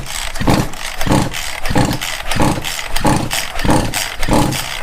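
Echo CS400 two-stroke chainsaw engine pulled over repeatedly on its recoil starter with a compression gauge in the spark plug hole and the plug out, so it turns over without firing: a rope-and-engine pulse about one and a half times a second. This is a compression test, which reads 120 psi, enough to run.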